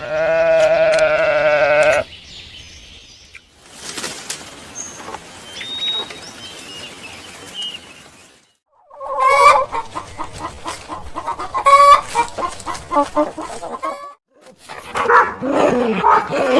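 A loud bleat with a wavering pitch, lasting about two seconds, then chickens clucking in a run of short, rapid calls.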